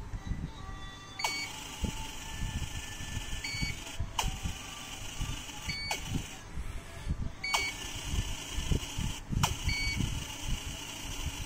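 Amway eSpring water purifier control board beeping: five short, high beeps about two seconds apart, the filter-expired alert. A few sharp clicks and an on-off hiss come in between.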